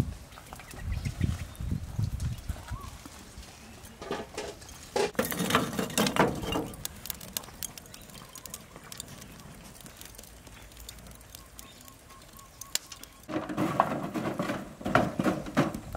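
Irregular knocks and clatter, then a quieter stretch; from about three seconds before the end, a wooden stick knocking and scraping among charcoal in a metal barbecue trough.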